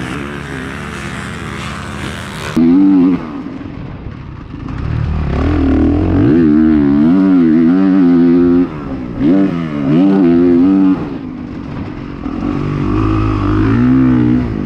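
Honda dirt bike engine at close range, revving hard and dropping back again and again as the throttle is opened and rolled off. For the first couple of seconds it is a more distant motocross bike engine.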